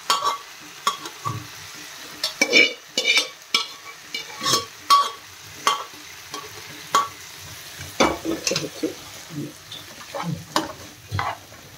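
Slotted steel spatula scraping and knocking against a non-stick frying pan while quinoa and vegetables are stirred together, in irregular strokes about one or two a second, over a faint sizzle from the hot pan.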